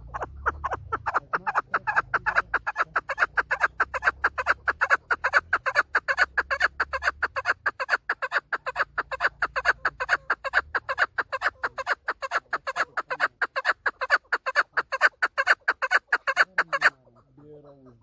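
Female chukar partridge calling: a fast, steady series of short notes, several a second, that stops abruptly near the end.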